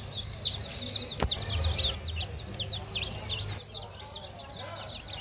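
A flock of baby chicks peeping continuously: many short, high, downward-sliding peeps overlapping several times a second. A single sharp click about a second in.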